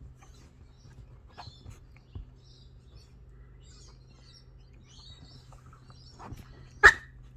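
A small puppy and a cat scuffling on a sofa: faint high chirps and soft rustles, then one short, sharp, loud yelp about seven seconds in.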